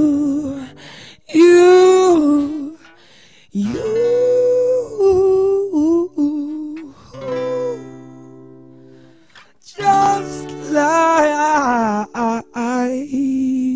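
A male voice sings wordless, sliding vocal runs over a strummed acoustic guitar. Twice the voice stops and the guitar chord rings on its own.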